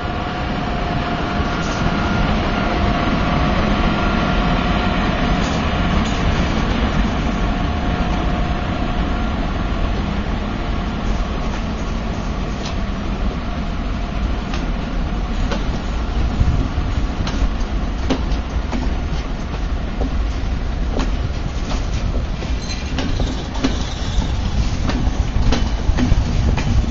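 SNCF BB 8630 electric locomotive hauling a rake of Trenitalia couchette cars slowly past: a steady rolling rumble with a thin whine that fades over the first several seconds. About halfway through, the wheels begin clicking irregularly over rail joints and points.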